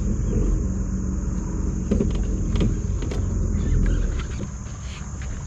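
Steady high drone of insects, such as crickets, over a continuous low rumble, with a few light clicks and knocks about two to three seconds in.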